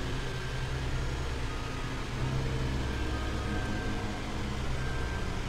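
A steady low hum with no sudden sounds.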